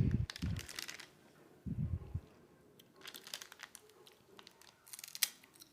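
Dried seaweed crinkling and crunching in several short crackly bursts, with a couple of low dull thuds.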